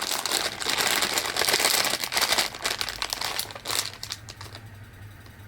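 A snack package of spicy mango chews being handled and crinkled, with a dense run of crackly rustling that dies down about four seconds in.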